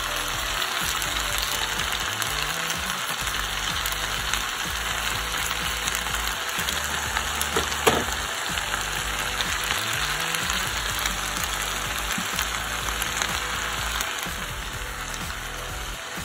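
Spaghetti sizzling in a hot pan, a steady hiss of frying, with one sharp tap about eight seconds in.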